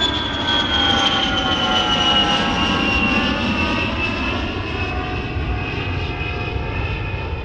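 Airliner jet engines running: a steady rumble under several whining tones that fall slowly in pitch.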